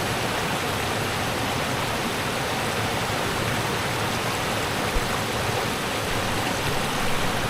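Rushing river water, a steady, even rush with no let-up. There is a brief low bump about five seconds in.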